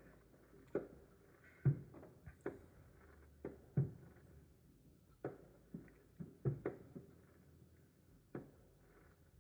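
Muffled firework bangs: about a dozen sharp reports at irregular intervals, some in quick pairs, each dying away quickly.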